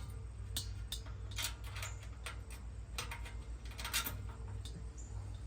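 Small metal clicks and taps of latch screws and nuts being handled and fitted against the smoker's steel lid, about half a dozen irregular ticks, over a steady low hum.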